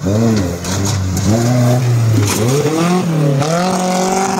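An off-road 4x4's engine revving hard as it climbs dirt mounds, its pitch rising and falling several times as the throttle is worked.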